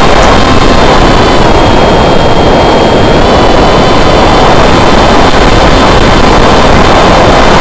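Electric motor and propeller of an RC flying wing as heard from its onboard camera: a steady, loud whine, its pitch easing down slightly about a second and a half in, under a heavy rush of wind over the microphone.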